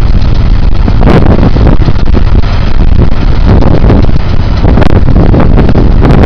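Heavy wind buffeting on the microphone, loud and gusty, with a tractor running underneath.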